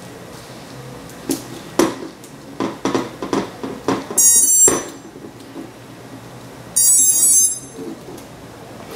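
Clicks and knocks of a battery connector being plugged into a quadcopter, then two short high-pitched beeps, about two and a half seconds apart, from the quadcopter's electronic speed controllers as they power up.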